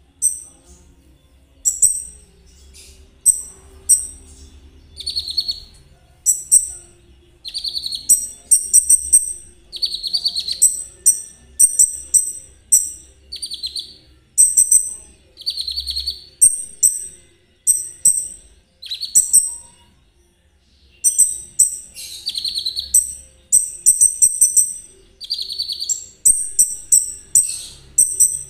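Konin songbird singing a fast series of high, sharp chirps and buzzy trills in short phrases about a second apart, with a short pause about two-thirds through.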